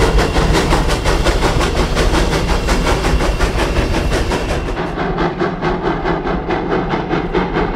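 Virginia & Truckee No. 29, a 2-8-0 steam locomotive, pulling a freight train upgrade: a rapid, even beat of exhaust chuffs over the rumble of the train. About five seconds in, the sound turns duller and more distant.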